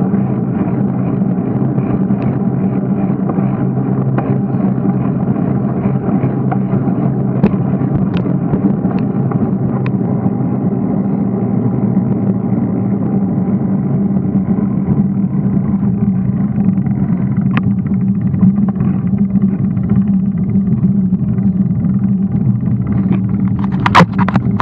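Steady rumble of wind and tyre noise from a bicycle rolling along an asphalt path, with a few sharp clicks from bumps and a louder clatter near the end.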